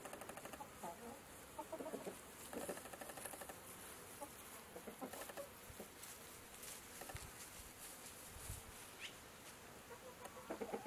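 Chickens clucking faintly in short, scattered calls while foraging, with one brief high chirp about nine seconds in.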